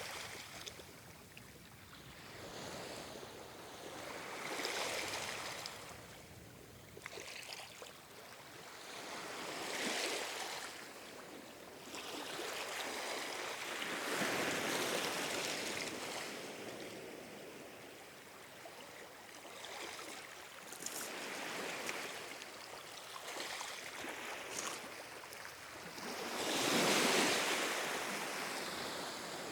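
Calm ocean waves washing in and drawing back, a steady wash that swells and fades every few seconds, the largest wave near the end.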